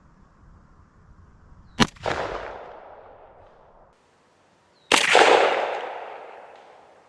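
Two shotgun blasts about three seconds apart, each followed by a long fading echo. The gun is firing triple decker shells, each loaded with nine large metal pellets.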